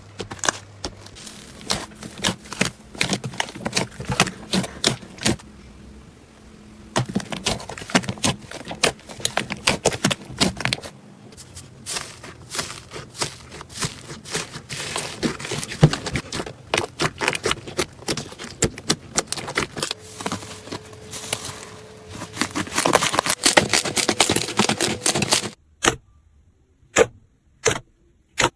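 Slime being worked, giving a dense run of sticky clicks and crackling pops. Near the end it thins to single sharp clicks about every half second.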